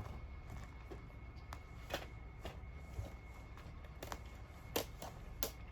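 A few scattered scratches and rustles, the loudest two near the end: cats' claws pawing at a carpet.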